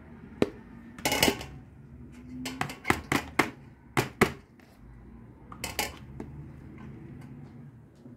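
A perforated stainless-steel colander clinking and clattering against a steel tray as it is handled and set down: a string of sharp metallic knocks, bunched in the middle of the stretch.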